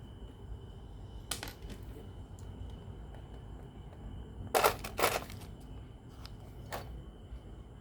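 Four sharp clicks and knocks of hard parts or tools being handled during a cassette radio repair, the loudest two close together about halfway through, over a faint steady high tone.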